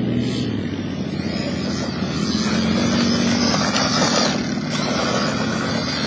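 Megatech Megapro 1/18-scale RC truck driving through loose sand: its motor and gears whine steadily, rising in pitch about two seconds in as it speeds up, with a hiss of sand thrown off the tyres growing from about three seconds in.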